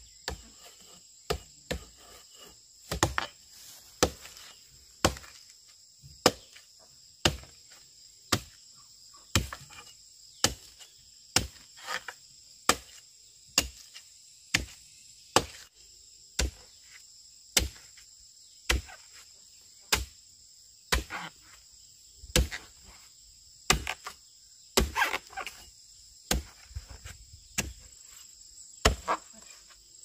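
Repeated chopping strikes with a blade or tool, about one a second, against a steady high buzz of insects.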